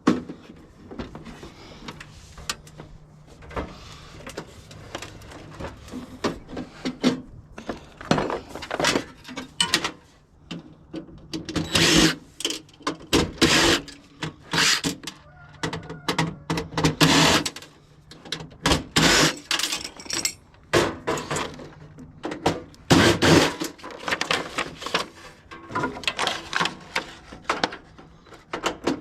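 Irregular clatter, knocks and scraping of tools on metal as a water heater is taken apart, with the strokes coming thicker in the second half.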